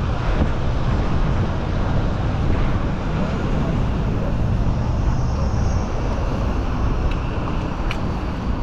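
Gale-force wind buffeting the microphone: a constant, loud low rumble with a rushing hiss above it.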